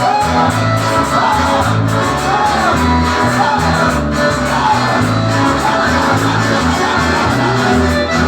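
Live worship praise music from a band, with guitar and a bass line stepping through notes, and curving melodic glides over it.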